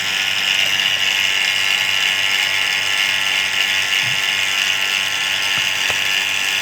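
Refrigeration vacuum pump running steadily with a fine rattle, pulling a vacuum on a cooler's clogged capillary tube to draw out moisture and impurities.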